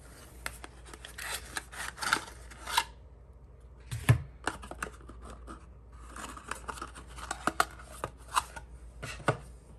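A cardboard toy booster box being carefully opened by hand: irregular sharp clicks and scraping of card and packaging, in two stretches with a pause in between.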